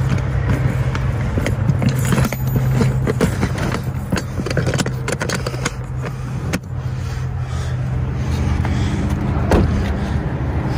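Plastic latch of a Plano 3300 tackle box snapped and the box handled, giving a run of sharp clicks and knocks, with a louder knock near the end. Under them runs a steady low vehicle engine hum.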